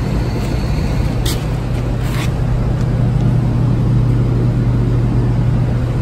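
Steady machine drone with a low hum, like a running engine, unchanged throughout, with a couple of brief faint scrapes about one and two seconds in.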